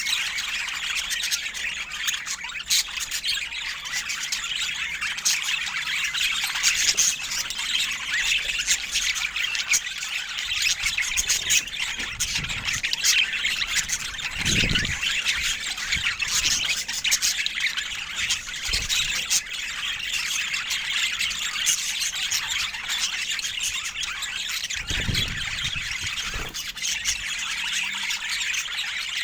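Budgerigars chattering, chirping and squawking without a break. Two dull low thumps come about halfway through and again near the end.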